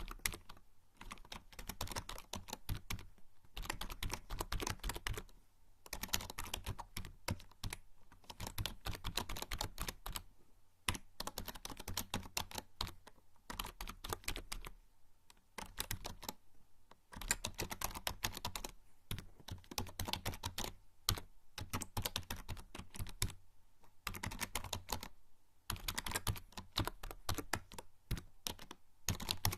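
Typing on a membrane computer keyboard: fast runs of key presses broken by brief pauses every few seconds.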